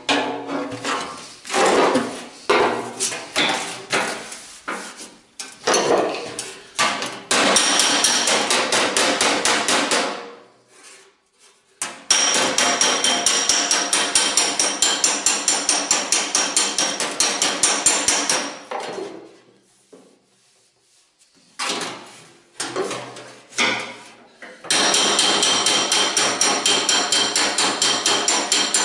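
A homemade body slapper, forged from an old leaf spring, slapping a sheet-steel car body panel to straighten it. It strikes in rapid runs of about three a second, with short pauses, and the thin steel rings with each blow.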